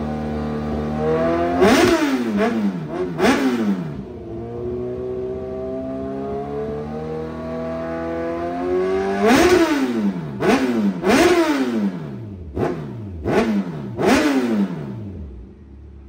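Kawasaki Z1000R inline-four engine idling through an aftermarket titanium slip-on exhaust and being blipped hard: two sharp revs about two seconds in, then a quicker series of about six, each rising and falling straight back to idle. The engine is switched off shortly before the end.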